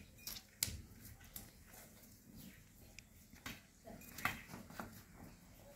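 Water buffaloes shifting about in a shed: a few faint, scattered knocks and clicks, the sharpest about half a second in and a small cluster a little past the middle.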